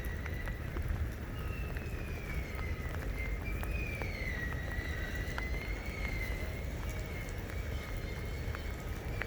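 Wind rumbling on the microphone outdoors in the rain, with scattered faint ticks and a faint high tone that wavers slowly up and down.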